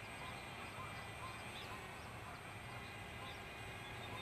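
Faint, scattered bird chirps over a steady outdoor background hiss.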